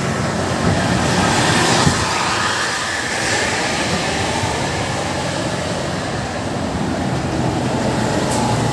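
Road traffic noise: heavy vehicles passing close by with a steady rush of engine and tyre noise, and no horn sounding.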